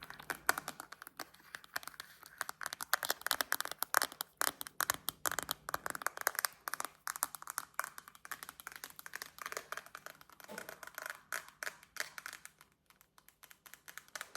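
Rapid, irregular tapping and clicking on a hard object, many taps a second, thinning out and stopping shortly before the end.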